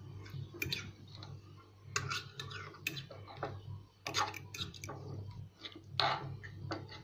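Metal fork clicking and clinking against a glass jar of pickled lemons and a ceramic plate: scattered sharp taps, several in a few seconds, over a low steady hum.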